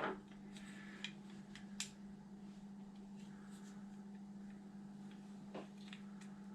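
A few faint light clicks from small RC-car parts and bearings being handled, over a steady low hum.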